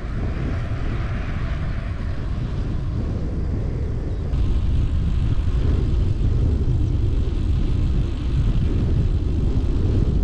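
Wind buffeting a GoPro's microphone on a moving road bike: a dense, steady rumble that gets louder about four seconds in.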